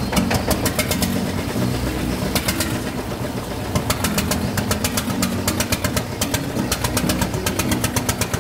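Single-cylinder engine of a long-tail boat running under way, with a rapid, even knocking beat.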